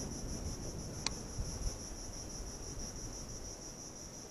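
Steady high-pitched chirring of insects, a finely pulsing buzz, with a single faint click about a second in.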